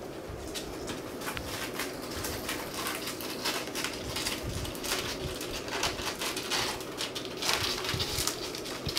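Scattered light taps and scuffles of a kitten's paws moving and pouncing on a hard floor, over a steady low hum.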